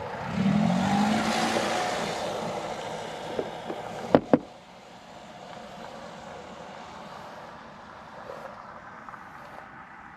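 A motorcycle passing close by, its engine note rising and then fading away over about four seconds. Two sharp clicks come just after four seconds in, followed by low street background.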